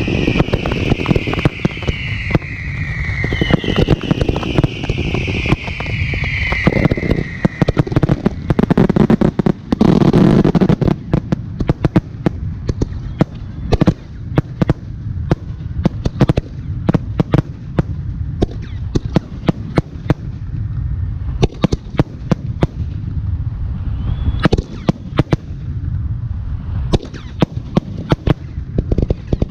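Fireworks barrage of aerial shells launching and bursting in rapid, overlapping reports. Several whistles fall in pitch during the first eight seconds, and a deep rumbling swell comes about ten seconds in.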